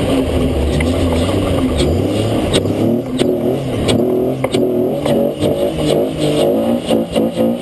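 Toyota FJ40 off-road racer's engine heard from inside the open cab, revving up and down as it drives through mud and water, its pitch wavering quickly in the second half. Scattered sharp knocks and clatter sound over it.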